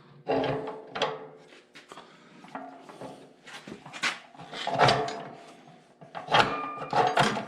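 Irregular metal clanks and knocks from tools and parts being handled during work on a tractor's belt-pulley power take-off; a couple of the strikes near the end ring briefly.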